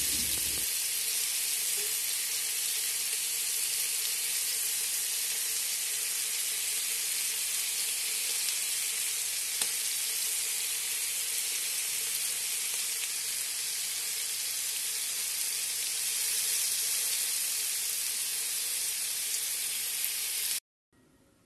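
Masala-coated sardines frying in hot coconut oil in a pan: a steady sizzle that cuts off suddenly near the end.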